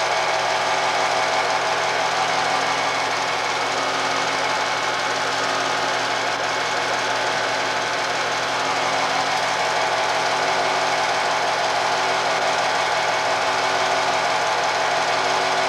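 Film projector running steadily, its mechanism clattering with a constant hum, the noise of old home-movie film being played back.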